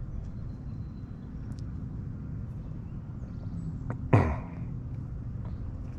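Steady low background hum, with a man's short vocal sound about four seconds in, falling quickly in pitch.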